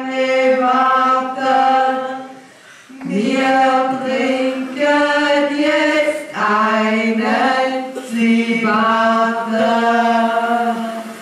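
Several voices singing together in long, held notes, a simple chant-like tune, with a short break about two and a half seconds in.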